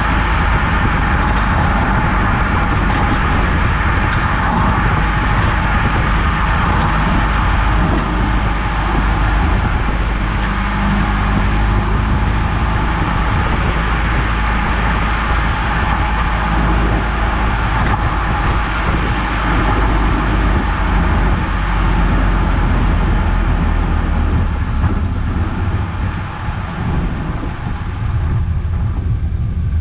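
Eunos Roadster (Mazda MX-5) under way: steady road and tyre noise with the engine running underneath, and a few faint clicks in the first several seconds.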